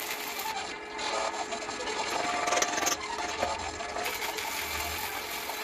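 Shielded metal arc (stick) welding on a steel frame: the arc crackles and sizzles steadily, with a brief louder stretch a little past the halfway point.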